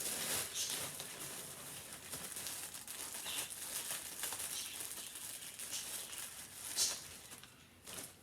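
Rustling and crinkling of clothing and its packaging being handled and pulled from the box, a continuous run of crackles with a louder crinkle about seven seconds in.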